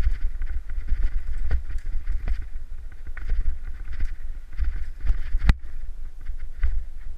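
Mountain bike riding fast down a rough dirt trail: wind rumble on the camera microphone with tyres on dirt and the bike rattling over bumps, in a run of clicks and knocks, the loudest knock about five and a half seconds in.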